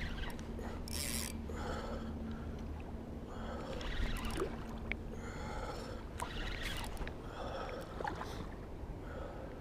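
A steady low rumble of outdoor background noise, with a string of short breathy, hissing bursts about once a second over it.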